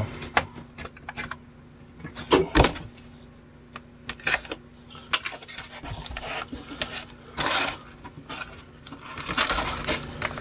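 Hands handling a tape-sealed brown-paper package on cardboard: scattered taps and knocks with a few short rustles of paper and cardboard.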